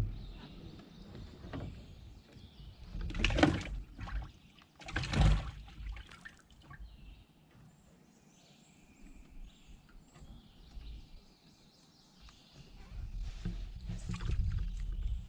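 Water splashing and sloshing against a small boat twice, about three and five seconds in, then quiet swamp ambience with faint bird calls. Low knocking and rumbling picks up near the end.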